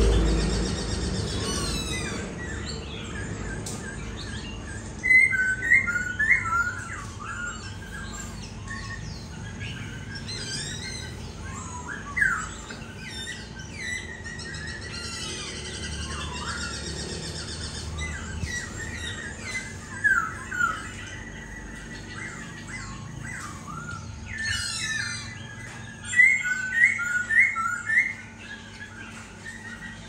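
Caged laughingthrush singing in bursts of loud, varied whistled phrases with short pauses between. The loudest part is a quick run of four or five sharp repeated notes near the end. A faint steady hum runs underneath.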